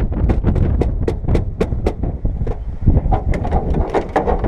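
A quick, uneven run of sharp clicks and knocks, several a second, over a steady low rumble.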